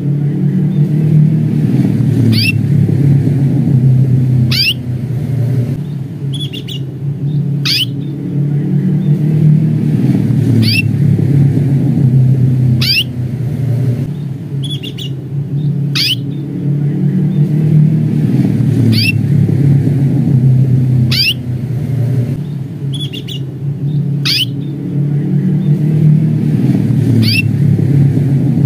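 Domestic canary giving its short, sharp 'cuit' contact call over and over, about once every two seconds, now and then followed by a softer second note. A steady low rumble runs underneath and is louder than the calls.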